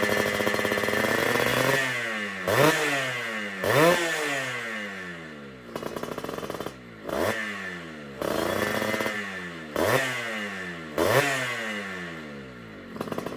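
Suzuki Tornado GS 110 motorcycle engine with a racing exhaust, held at high revs for about two seconds and then blipped on the throttle about six times, each rev rising sharply and falling back toward idle.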